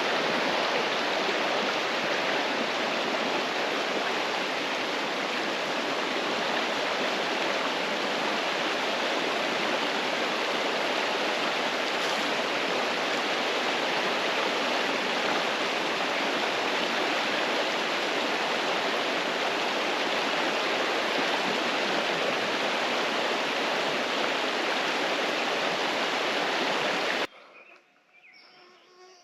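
Steady rushing of creek water, an even hiss with no breaks, that cuts off abruptly near the end.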